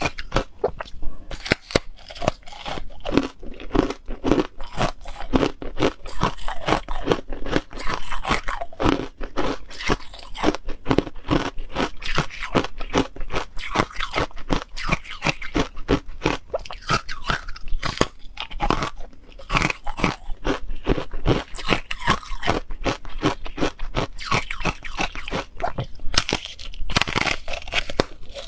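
Crunching and chewing of hard ice coated in matcha powder: a dense, uneven run of sharp cracks as the ice is bitten and ground between the teeth.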